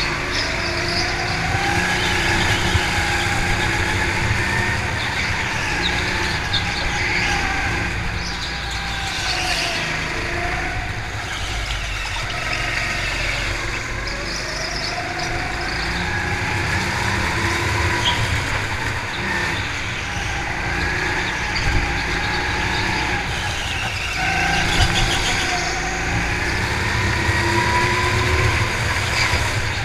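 Go-kart's motor heard from the driver's seat, its pitch rising and falling every few seconds as the kart speeds up on the straights and slows for the corners.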